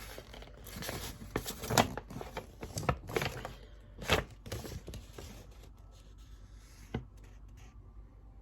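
Paper and packaging being handled: rustling and crinkling with scattered taps, busiest in the first five seconds, then dying down to faint handling noises.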